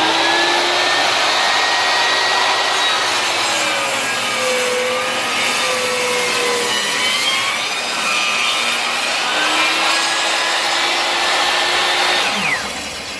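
Power saw cutting a long scarf taper into a 1x3 wooden board on a scarf jig, its whine wavering under the load of the cut. Near the end it is switched off and winds down with a falling pitch.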